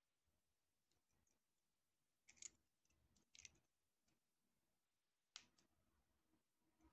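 Faint clicking of small plastic parts of a walking chicken toy's mechanism being handled: three brief clusters of clicks, the last one sharpest, about five seconds in.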